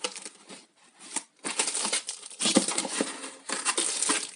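Plastic packaging crinkling and rustling as tackle boxes are handled and unwrapped, in irregular bursts with a short pause about a second in.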